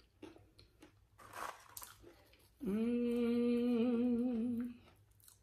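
Mouth-closed chewing and crunching of tortilla chips with taco dip, then a long hummed "mmm" of enjoyment, about two seconds, starting about halfway in and wavering slightly near its end.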